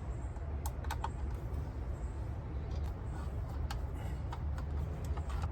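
A few light, sharp clicks and taps, spaced irregularly, over a steady low hum.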